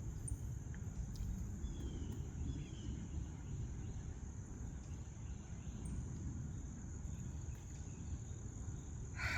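Outdoor ambience: a steady high insect drone, typical of crickets, over a low rumble, with a couple of faint short bird chirps about two seconds in.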